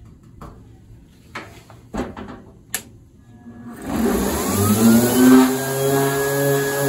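A few light knocks, then a corded electric random orbital sander starts about halfway through. It spins up with a rising whine and runs steadily, its pitch wavering as it sands the old paint on a steel VW Beetle decklid with a 120-grit disc.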